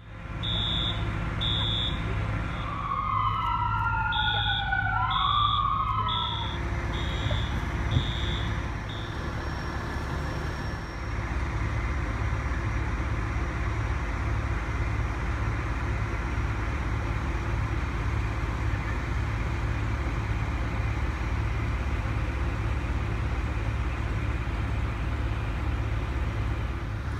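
An emergency vehicle's siren wails up and down for a few seconds, over a repeated high-pitched beep. The beeping stops about nine seconds in. A steady low engine rumble runs underneath and carries on alone after that.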